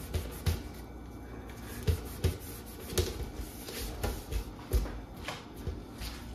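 Light knocks and rubbing from a toaster being handled and wiped clean, irregular and about twice a second, over a steady low hum.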